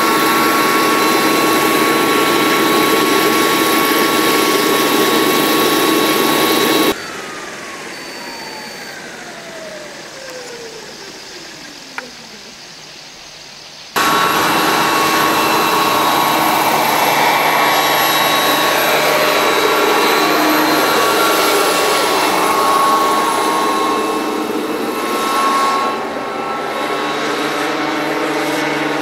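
Radio-controlled CH-53 helicopter's JetCat turbine and rotor whining steadily at a high pitch. About seven seconds in the sound cuts off abruptly to a quieter stretch in which a single tone falls steadily in pitch for several seconds, with one click near its end. Then the full turbine whine returns abruptly, its tones sliding up and down as the helicopter passes low by.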